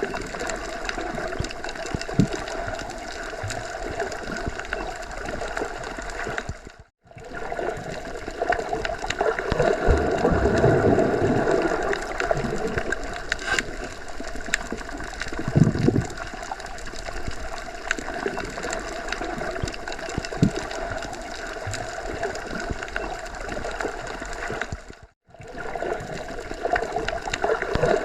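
Underwater ambience: a steady, muffled water noise with occasional swells of low rumble. It cuts to silence briefly twice.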